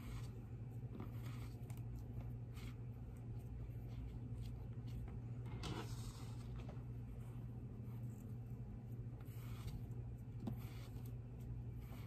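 Soft, irregular swishes and rustles of cotton T-shirt strips being pulled taut and stretched through the hands, the loudest of them about six seconds in, over a steady low hum.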